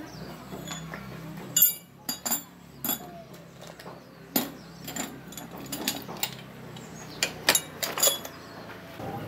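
Metal hand tools, spanners and a socket wrench, clinking and clattering on a concrete floor: about a dozen sharp metallic knocks with a short ring, the loudest about one and a half seconds in.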